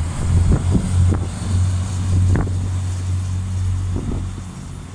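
Irish Rail 29000-class diesel multiple unit passing and running away along the line, its diesel engines giving a steady low drone that eases off slightly near the end. Irregular thumps of wind buffet the microphone.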